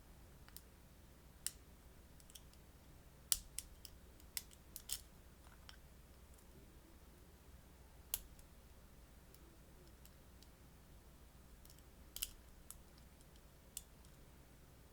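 Small, sharp clicks at irregular spacing, about a dozen, the loudest about three seconds in: a pick and a turning tool working the wafers of a wafer-type lockout padlock while it is being picked.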